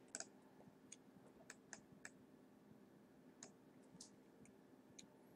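A handful of faint, short computer mouse clicks, about eight scattered over a few seconds, over near-silent room tone.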